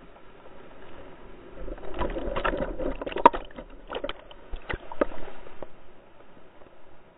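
A whitewater rapid's wave breaking over and into an inflatable raft: rushing, splashing water with many sharp knocks and slaps. It is loudest from about two to five and a half seconds in, as the water buries the camera and floods the boat.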